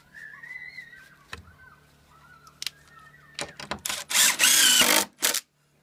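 Cordless drill driving a long screw through a door hinge and jamb, through the shims and into the framing. It starts in a few short bursts and then runs steadily for about a second before stopping, well past halfway through.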